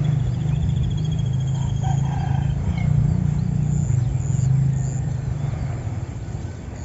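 A small engine running with a low, steady hum that swells around the middle and eases off near the end. A fast high trill sounds over it in the first half, with scattered bird chirps.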